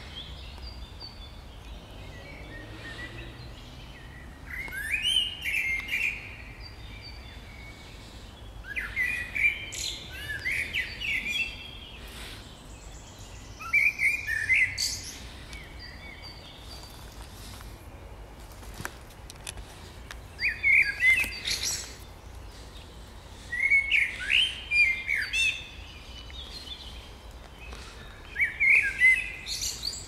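Songbirds singing in spring, a short phrase of quick chirping notes every few seconds.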